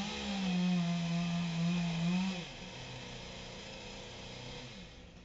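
Chainsaw engine revving up sharply, holding a high steady pitch for about two seconds, then dropping back to a lower, quieter running speed.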